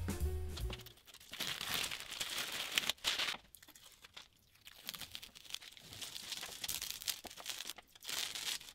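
Masking tape being peeled off a painted steel frame: a crinkling, tearing sound in two stretches, the first starting about a second in and the second near the end, with quieter handling between.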